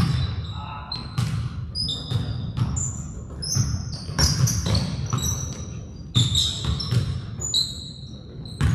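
A basketball bouncing on a gym floor in irregular thumps, mixed with many short, high sneaker squeaks from players moving on the court.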